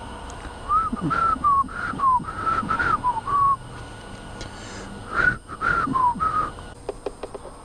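A person whistling a short tune: two phrases of clear, slightly sliding notes with a pause of about a second and a half between them.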